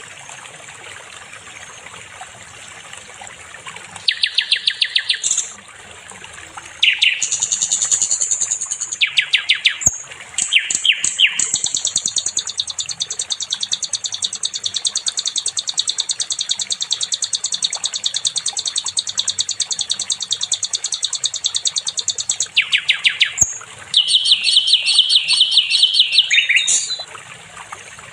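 Sikatan londo, a flycatcher, singing long runs of very fast, high, chattering trills. One unbroken trill lasts about ten seconds, with shorter runs before and after it, over a steady background hiss like trickling water.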